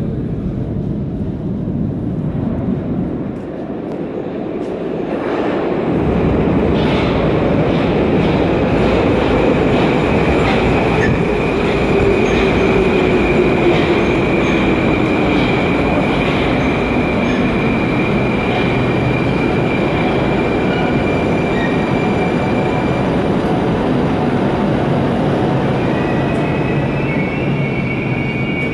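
Moscow metro 'Moskva' (81-765) train pulling into the station and braking to a stop. Its rumble builds about five seconds in, with wheel clicks over the rail joints and a motor whine that falls in pitch as it slows.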